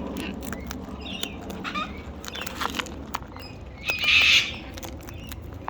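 Wild parrots giving a few short chirps and one loud harsh screech about four seconds in, over scattered sharp clicks and cracks of a beak working on a nut shell.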